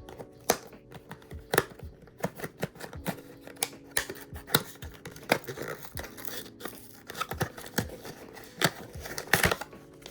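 A blind box's packaging being opened by hand: paper and plastic tearing and crinkling, with many irregular sharp clicks and rustles.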